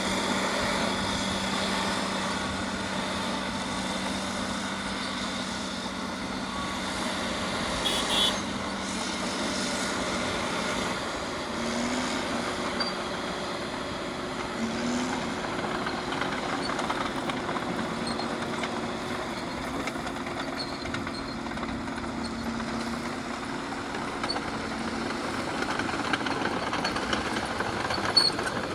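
Caterpillar D6R bulldozer at work, its diesel engine running steadily under load. About eight seconds in there is a brief sharp clatter, and a few seconds later the engine note shifts to a new steady pitch.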